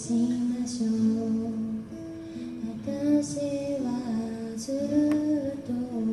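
A woman singing with her own acoustic guitar accompaniment, holding long notes.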